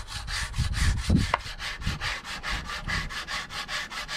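Sanding a birch wooden spoon by hand with a sanding block fitted with AbraNet abrasive mesh: quick, even back-and-forth rubbing strokes, several a second, with a few dull knocks about a second in.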